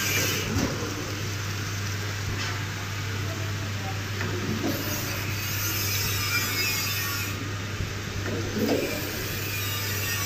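Vertical form-fill-seal washing-powder packing machine running: a steady mechanical noise over a constant low hum, with a few faint knocks.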